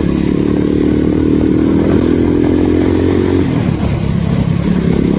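Motorcycle engine pulling hard as the rider speeds up, heard through a helmet-mounted external microphone. The strong engine note falls away about three and a half seconds in, and a lower, rougher running sound follows.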